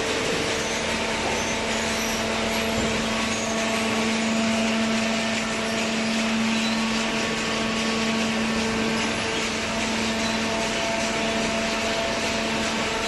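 Horizontal waste paper baler machine running: a steady mechanical hum with a constant tone that comes in just after the start and holds.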